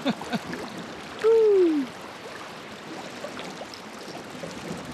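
Steady rush of river water, with a single short cry falling in pitch about a second in, the loudest moment, and a few faint clicks just before it.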